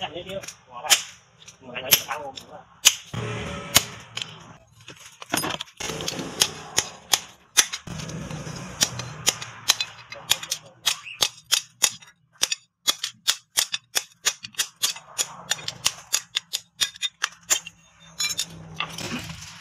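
Hand hammer striking a leaf-spring knife blade on a steel anvil. The first blows are heavy and about a second apart, on the red-hot steel. From about ten seconds in comes a fast run of lighter blows, about four a second, as the blade cools.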